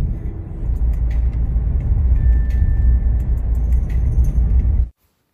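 Cabin noise of a moving car: a steady low rumble of engine and road noise. It cuts off abruptly near the end.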